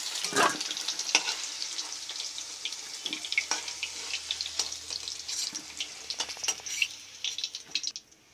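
Potato wedges sizzling in hot oil in a steel wok, with a metal spatula scraping and clicking against the pan and the steel bowl as the fried pieces are lifted out. The sizzle fades near the end.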